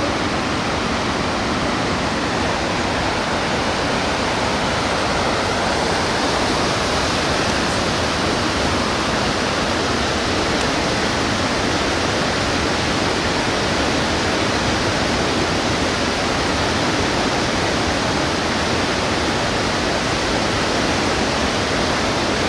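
Steady rush of a fast mountain river's whitewater rapids, an even roar of water.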